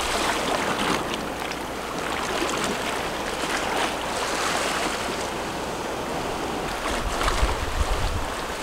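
Choppy sea water washing and splashing against a rocky shoreline, a steady wash with small splashes. Near the end, wind gusts on the microphone add a low rumble.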